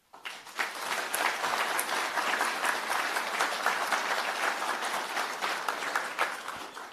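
Audience applause: many hands clapping, building within the first second, holding steady, then dying away near the end.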